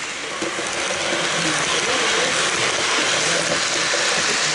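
HO-scale model electric train running along the layout track: a steady running noise of its motor and wheels on the rails.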